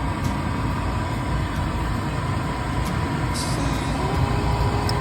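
Goodman gas furnace running with a steady mechanical hum and rush; a second steady tone comes in about four seconds in.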